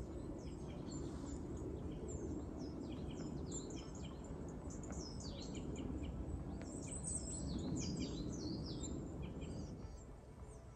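Small songbirds chirping and singing in quick series of high notes that sweep downward, over a steady low background rumble; the birdsong dies away near the end.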